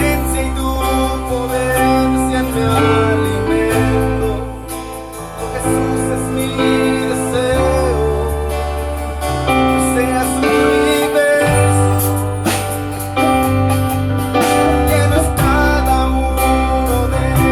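Live band playing a song at a sound check: held bass notes and keyboard chords under a wavering sung melody, with frequent drum and cymbal hits.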